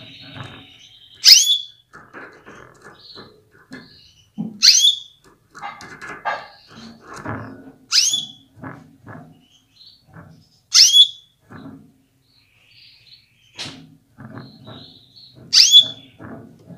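Female canary calling: five short, sharp calls about every three seconds, each falling steeply in pitch. This is the call that rouses male canaries to get ready and sing. Soft taps and knocks in the wire cage come between the calls.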